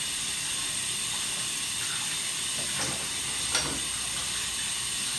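Kitchen tap running into a sink during dishwashing, a steady hiss of water, with two light knocks of dishes about three seconds in.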